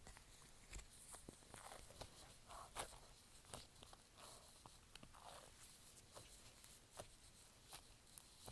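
Faint squishing of a sticky slime being pressed and stretched by hand, with scattered small clicks and pops.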